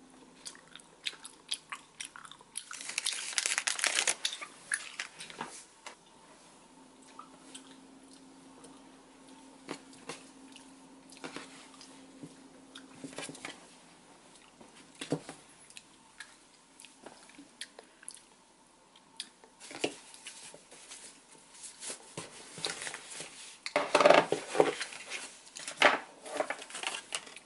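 Plastic snack packet of strawberry gummies crinkling as it is torn open, a dense burst of crackling a few seconds in. Scattered small clicks and rustles of things handled on a desk follow, with another burst of rustling near the end.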